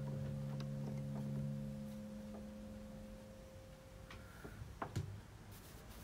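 The last sustained piano chord ringing out and fading away, followed by faint scattered ticks and a few louder clicks about five seconds in.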